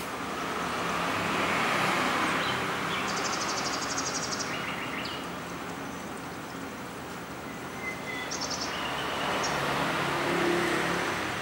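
Outdoor ambience: the hiss of passing road traffic swelling twice, near the start and near the end, with short bird chirps and a rapid high trill over it.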